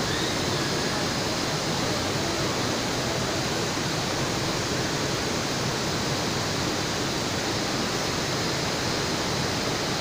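Fast river water rushing over rocks at a waterfall: a steady, even whitewater roar.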